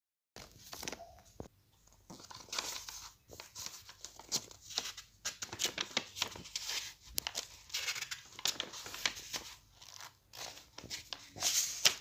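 Paper rustling and crinkling as the pages of a paperback book are handled, with many small crackles, and a louder swish of a page being turned near the end.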